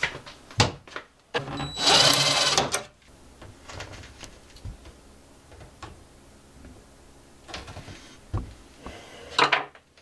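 Hands fitting a metal magnetic cabinet latch to a closet door: a loud burst about a second long around two seconds in, then scattered light clicks and knocks of the hardware against the wooden door, with another short burst near the end.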